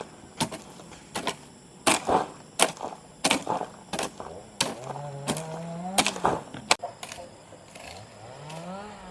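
A blade chopping bamboo in a string of sharp, irregular knocks, about a dozen in all. A low pitched sound rises in pitch twice, about five seconds in and near the end.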